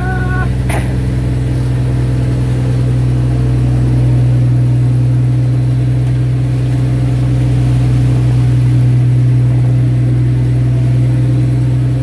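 Fishing boat's engine running steadily under way, a constant low drone that does not change pitch. A single brief knock about half a second in.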